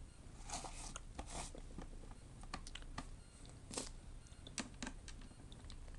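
Faint, irregular small clicks and taps of laptop plastic parts being handled during disassembly.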